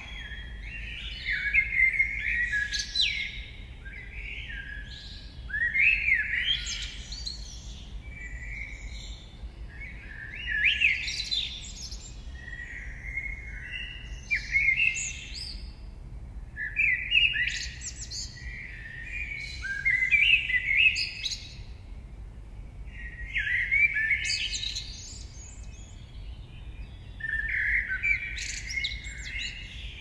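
Songbirds singing: a phrase of quick, high, sliding notes about every three to four seconds, over a faint low steady rumble.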